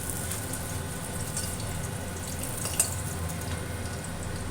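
Fish pieces frying in hot oil in a kadai, a steady sizzle, with a light click of a spatula against the pan about three seconds in as the pieces are lifted out.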